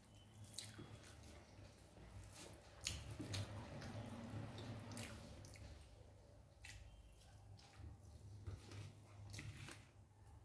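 Faint eating sounds: chewing tehari rice and chicken, with scattered small wet mouth clicks.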